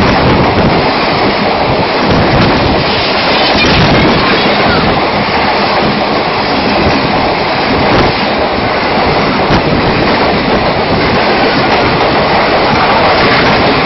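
Express train's passenger coaches passing at speed close by: a loud, steady rush of wheels on rail and air, with the odd click from the wheels.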